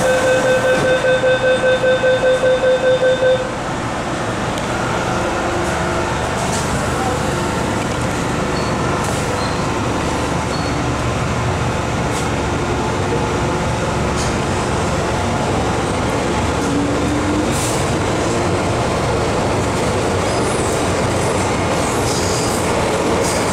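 MTR M-Train door-closing warning, a rapid beeping tone for about three seconds. Then the electric train pulls away from the platform and runs on into the tunnel with a steady rumble of motors and wheels on rail.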